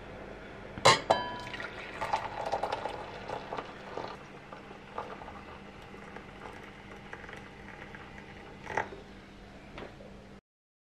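Tea being poured into a glass mug, the pour strongest in the first few seconds and then tapering off, with a sharp ringing clink about a second in and another near the end. The sound cuts off abruptly just before the end.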